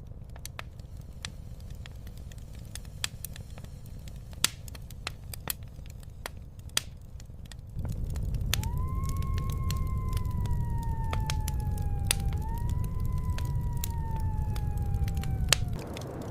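Wood fire crackling with sharp pops throughout. About halfway through a low wind rumble swells up, and over it comes a long howl-like tone that slides slowly downward, twice in a row.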